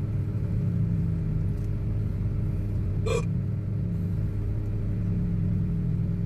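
Steady low rumble of a car's engine and tyres heard from inside the cabin while driving slowly, with one brief sharp sound about three seconds in.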